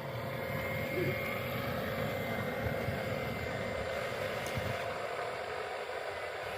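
Steady whine of the small electric motors and gearing of radio-controlled construction models running, over outdoor background noise.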